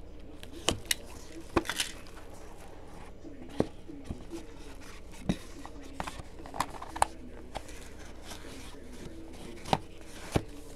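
A cardboard trading-card box being cut open and unpacked: a blade scraping at the seal, then the lid lifted off and the foam insert handled. About a dozen sharp taps and clicks are scattered throughout.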